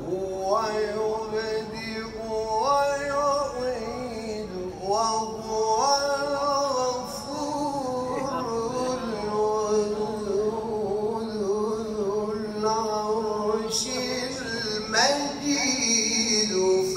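A male Quran reciter chanting in the melodic tajweed style: long held, ornamented notes, each phrase sliding upward at its start, with a new phrase beginning near the end.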